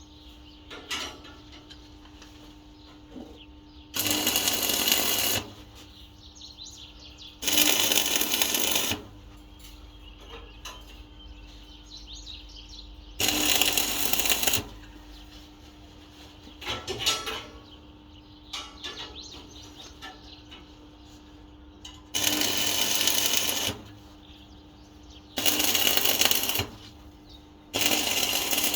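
Short bursts of electric arc welding, six in all, each lasting about a second and a half and starting and stopping abruptly, with light metal clinks between them and a steady hum underneath.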